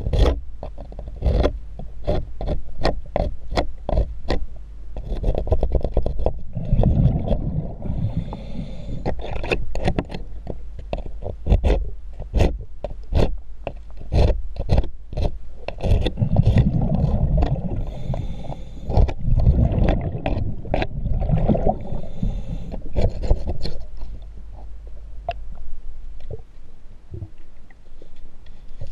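A hand scraper scraping and knocking at a corroded zinc anode on a boat's hull underwater, in a run of sharp strokes about one or two a second. The strokes stop about three-quarters of the way through. Two longer spells of low rumbling, the diver's exhaled bubbles, come between them.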